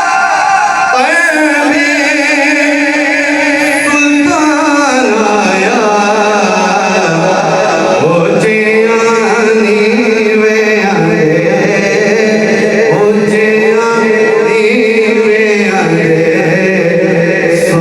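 Male voice singing a devotional song, drawing out long wavering notes without clear words, over musical accompaniment.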